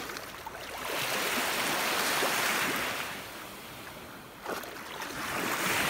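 Small waves washing in on a shallow beach: one wash swells and fades over about three seconds, and another builds near the end. There is a short thump about four and a half seconds in.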